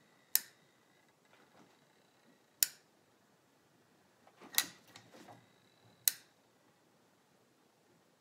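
Caulking gun's trigger clicking as it is squeezed to push out a bead of adhesive: four sharp clicks, one every one and a half to two seconds, with a little handling rustle between.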